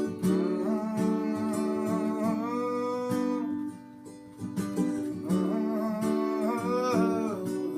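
Acoustic guitar music in an instrumental passage between sung lines, with a gliding melody line over strummed chords. It thins out briefly about four seconds in.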